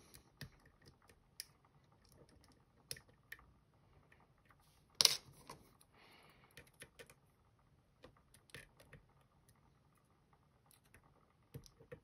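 Faint, irregular clicks and ticks of a lock pick working the pins of a Van Lock padlock, a tubular-style lock, with one sharp, much louder click about five seconds in.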